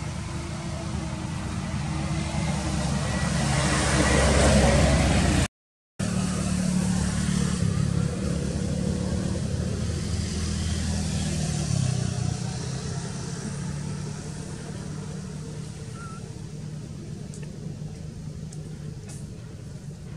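A motor vehicle engine running, swelling to its loudest about four to five seconds in. The sound drops out for half a second, then the engine carries on and slowly fades.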